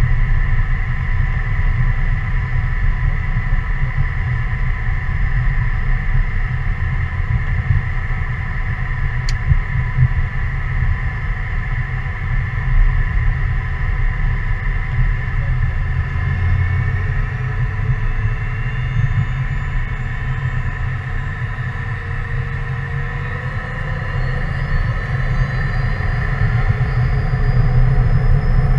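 Cessna CitationJet's twin Williams FJ44 turbofan engines running with a steady low rumble and whine. From about halfway through, the whine rises in pitch and the sound grows louder towards the end as the engines spool up, typical of thrust being applied for the takeoff run.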